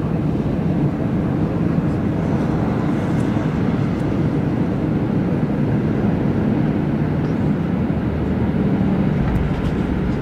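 Steady cabin noise inside an Aer Lingus Airbus A320 airliner through the flare, touchdown and landing roll: even engine and airflow noise with no distinct thump.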